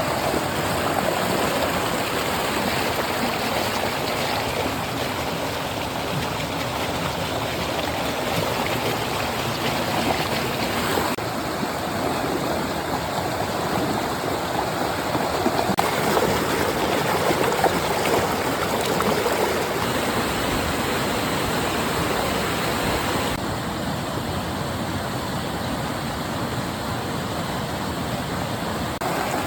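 Water flowing steadily in a stream, with the sound shifting slightly in character a few times.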